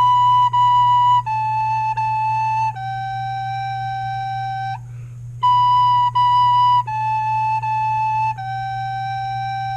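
Recorder playing a slow five-note phrase twice: B, B, A, A, then a long held G, each note tongued separately, with a short breath between the two phrases.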